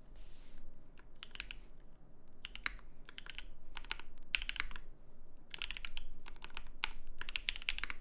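Typing on a mechanical keyboard: keystrokes clacking in short irregular bursts, with brief pauses between them.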